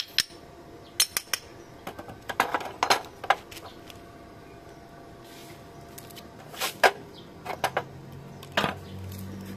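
Irregular metallic clinks, taps and short rattles of small metal parts being handled and fitted together while a gear reduction unit is assembled, the loudest knock about two-thirds of the way through.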